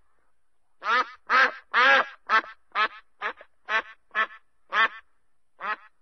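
Duck quacking: a quick series of about ten short quacks, roughly two a second, starting about a second in, with a brief pause near the end.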